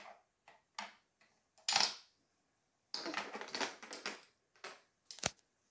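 Light clicks and clatter of small wooden toy fish pieces and rods knocking against a wooden game board and table. There is a longer rattle about three seconds in and a single sharp click near the end.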